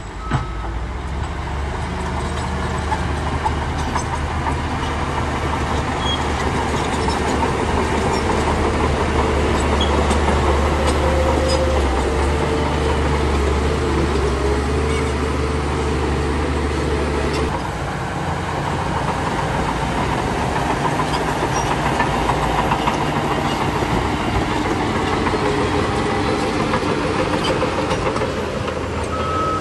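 Heavy diesel engine of a Shantui bulldozer working steadily, with a deep drone that drops away a little past halfway. A reversing alarm beeps briefly at the start and again near the end.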